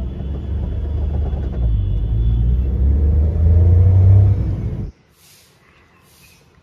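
Car heard from inside the cabin: a deep engine and road rumble, the engine pitch rising as it accelerates. It cuts off suddenly about five seconds in, leaving faint high chirps.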